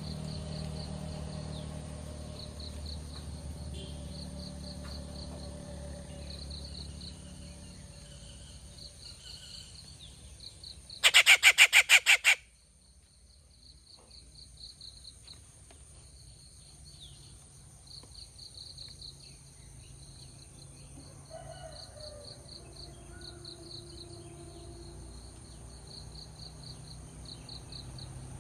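Rufous treepie giving a loud, harsh rattling call, about ten quick notes in just over a second, about eleven seconds in. Behind it insects chirp steadily in short pulses, with a continuous high-pitched buzz.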